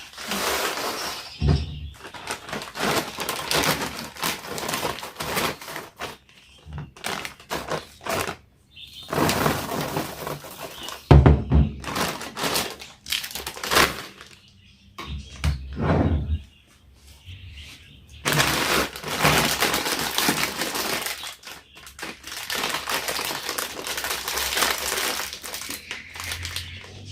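Handling noises of things being moved and worked by hand: rustling and crinkling with scattered knocks, in irregular bursts with short pauses, and one heavier knock partway through.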